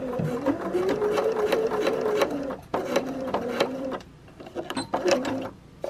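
Electric sewing machine stitching through folded 1-inch poly strapping: the motor hums steadily for about two and a half seconds, then the needle goes in quicker separate strokes. It pauses briefly about four seconds in, then makes a few more stitches.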